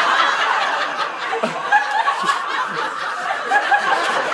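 Audience laughing: many people at once, loud and sustained, with scattered voices mixed in.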